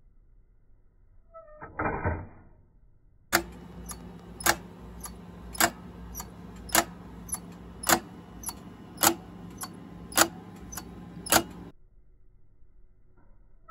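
3D-printed plastic spring detent escapement model ticking: a loud tick about every second with a lighter tick between each pair, the uneven beat of a detent escapement, which gives impulse on only one swing of the balance in two. A short pitched sound comes about two seconds in, before the ticking starts.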